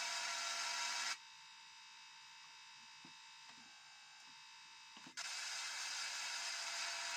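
Casiotone MT-100 electronic keyboard producing a steady, buzzy, hissy electronic tone that drops to a much quieter steady tone about a second in, with a few faint clicks, then comes back at full level about five seconds in.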